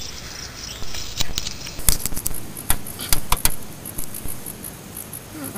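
Small hand tubing cutter being turned around a brake line to cut it to length, giving a scatter of sharp metal clicks and light scraping.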